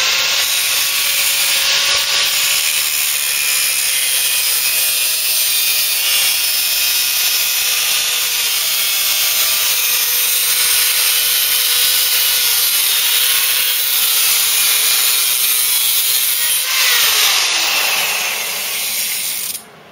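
Angle grinder with a cutting disc slicing through the sheet steel at the top of a Mk3 Ford Cortina's A-post, running steadily with its whine wavering a little as it bites. It stops suddenly near the end.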